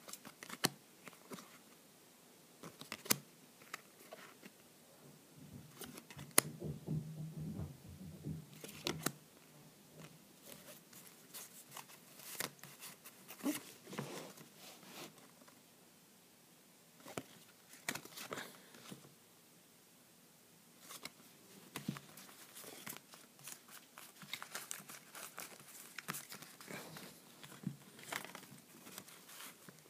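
Cardboard hockey cards being flipped through by hand, the cards sliding off the stack and snapping against each other in irregular clicks and rustles, with short pauses.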